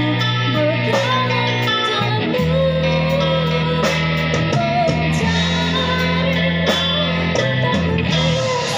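Live band music led by guitar, over a steady bass line that changes notes every couple of seconds.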